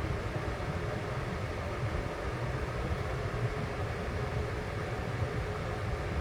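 Electric desk fan running steadily: an even rush of air over an uneven low rumble, with a faint steady hum underneath.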